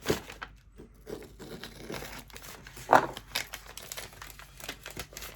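Packaging crinkling and rustling by hand as a small spell kit is opened, with irregular crackles and a louder crackle about three seconds in.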